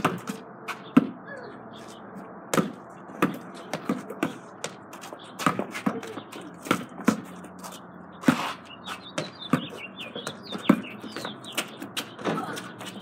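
Basketball bouncing on the ground in irregular dribbles, sharp thuds roughly one to two a second. Birds chirp faintly about two-thirds of the way through.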